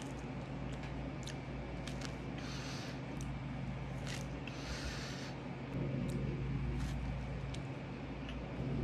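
Chewing and mouth sounds from eating a White Castle slider, with scattered soft clicks and two brief hissy rustles, over a steady low hum.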